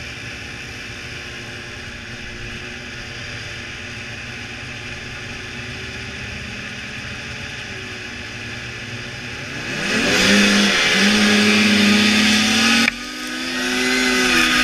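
Snowmobile engines at the start line, the 2002 Blade Striker 600's two-stroke among them: a steady idle, then about ten seconds in the field launches at full throttle with a loud rising engine note. Near the end the rider's engine note drops suddenly and climbs again, a sign of the sled bogging badly off the start.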